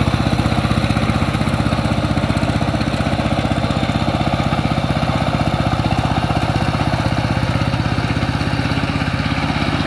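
Single-cylinder diesel engine of a two-wheel power tiller chugging steadily with a rapid, even beat, under load as it pulls the tiller through flooded paddy mud.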